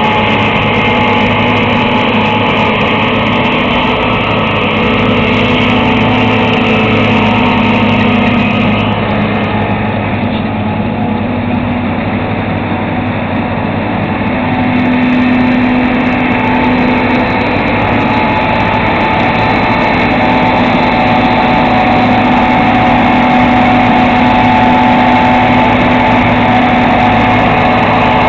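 John Deere 2256 combine harvester running steadily while harvesting soybeans, its engine and threshing machinery giving a continuous drone. The sound drops a little about a third of the way in as the combine moves off, then grows louder again as it comes back.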